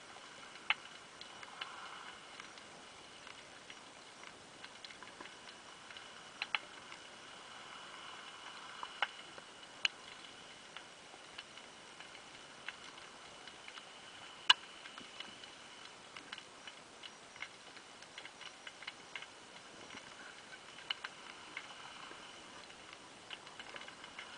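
Underwater sound through a camera's waterproof housing: sparse sharp clicks and ticks, one much louder about halfway through, over a faint steady hiss and a thin high whine.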